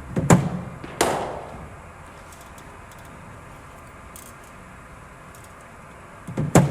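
Cricket ball deliveries in the nets: a bowling machine delivery and the bat striking the ball make two sharp cracks about 0.7 seconds apart, a third of a second in. A second delivery gives another pair of cracks near the end.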